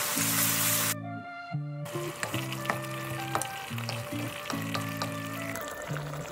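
Whole red snapper sizzling in a pan of hot oil and sauce. A loud hiss fills the first second, then a steadier sizzle with many small pops, over background music.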